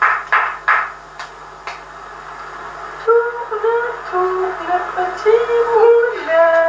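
A few sharp hand claps in the first couple of seconds, likely the toddler's own. Then, from about three seconds in, a high voice sings a short wandering tune, its pitch stepping up and down.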